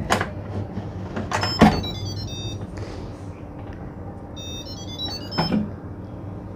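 Lid of a Mealthy Multipot electric pressure cooker being turned and lifted off, giving three clicks and knocks, the loudest about a second and a half in. Two short runs of high electronic tones sound in between, over a steady low hum.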